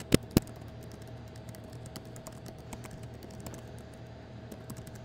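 Typing on a computer keyboard: a quick, uneven run of key clicks, with two louder clicks just after the start.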